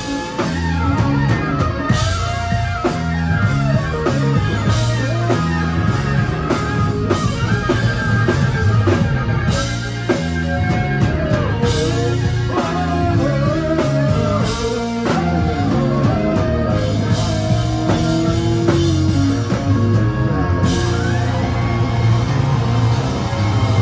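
Rock band playing live, with an electric guitar lead line over bass guitar, drum kit and keyboards.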